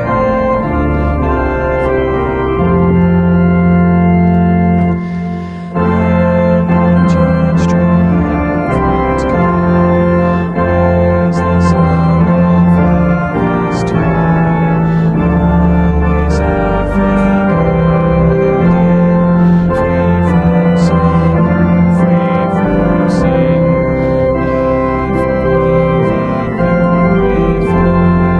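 Organ playing a slow piece in held chords that change every second or two, with a short break about five seconds in.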